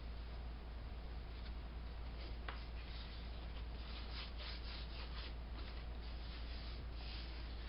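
Irregular short rubbing or scraping strokes on a hard surface, several close together in the middle, over a steady low hum.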